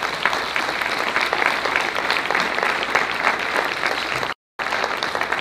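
Audience applauding: a steady round of clapping that cuts out completely for a split second a little past four seconds in.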